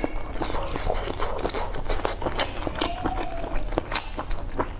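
Close-miked chewing and wet mouth sounds of someone eating: many short, irregular smacks and clicks.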